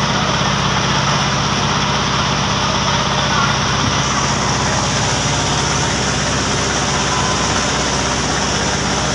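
Boat engine running steadily, a constant low drone under a broad rushing noise of wind and water as the boat moves along the river.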